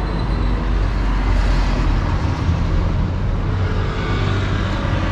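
Motor vehicle engine and tyre noise going by: a steady low rumble that swells about one to two seconds in, then eases.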